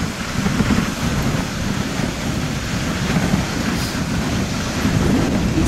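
Dog sled gliding over snow: a steady rumble from the runners, mixed with wind buffeting the microphone.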